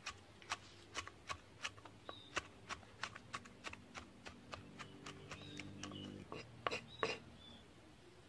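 A large knife chopping chillies on a thick round wooden chopping block: sharp, regular knocks of the blade on the wood, about three a second, with two louder strikes near the end.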